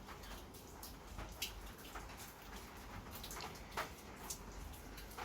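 Faint scattered clicks and light taps, with a few sharper ticks, from a bolt with its washer and split washer being handled while anti-seize paste is worked around the bolt.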